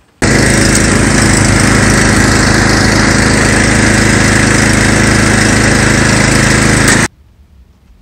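Snowblower running steadily and loud as it is pushed through deep snow, clearing it. The sound begins abruptly and cuts off suddenly about a second before the end.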